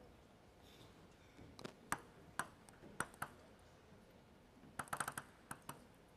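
Table tennis ball clicking sharply against the table and bats: single clicks a fraction of a second apart, then a quick flurry of clicks about five seconds in.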